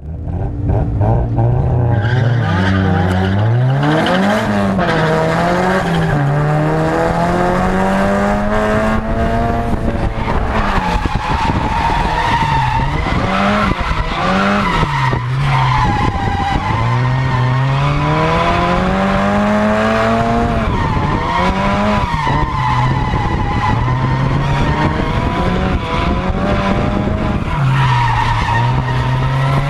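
Mazda Miata engine heard from inside its cockpit, revving hard with the revs climbing and dropping again and again while drifting, over continuous tire squeal and skidding.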